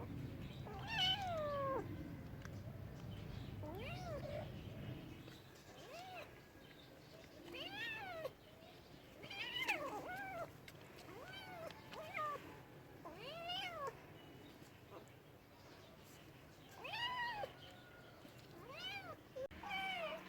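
A cat meowing repeatedly: about a dozen short meows, each rising then falling in pitch, with a few seconds' pause in the middle.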